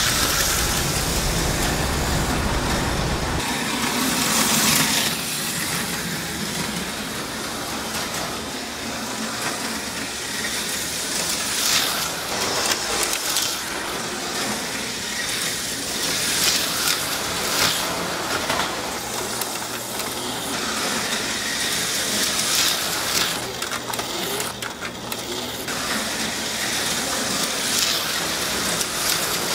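HO-scale Auto World Thunderjet slot cars running on plastic slot track, a buzzing motor-and-wheel hiss that swells several times as cars pass close by. A low rumble sits under it for the first few seconds.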